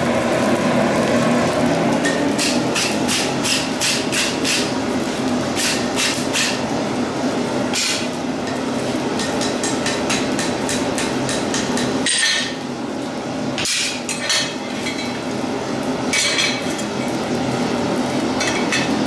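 Hammer blows ringing on a red-hot steel bar against a blacksmith's anvil as the bar is bent to shape: quick runs of about three strikes a second for the first several seconds, then sparser single strikes, over a steady low hum.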